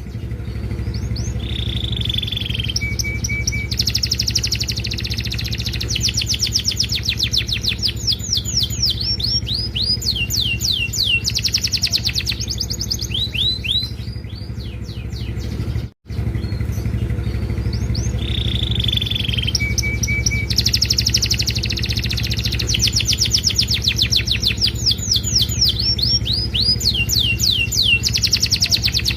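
Domestic canary singing hard: fast trills of sweeping notes and a short held whistle in long repeating phrases, over a steady low hum. The song drops out for an instant about halfway through, then the same phrases start again.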